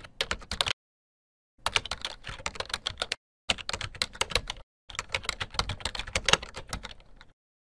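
Rapid typing on a computer keyboard: quick runs of sharp keystroke clicks in four bursts with short silent pauses between them, stopping shortly before the end.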